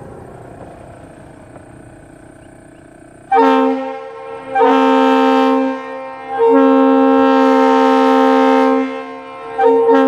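Leslie RS2 air-powered train horn with a 25 and 44 bell combination, mounted on a ute, sounding four blasts of a steady two-note chord. The first blast is short, the second lasts about a second, the third about two and a half seconds, and a short one comes near the end.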